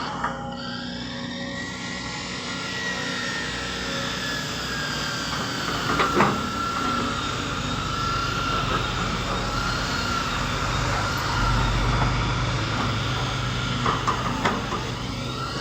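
Excavator's diesel engine running steadily with a wavering hydraulic whine, growing louder and deeper for a couple of seconds near the middle as it works under load. Sharp metal knocks come about six seconds in and again a few times near the end.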